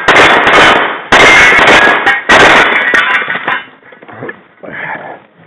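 Pistol fired in a rapid string of shots, loud enough to overload the recording, each blast smearing into the next. The shooting stops about three and a half seconds in, followed by a quieter sound near the end.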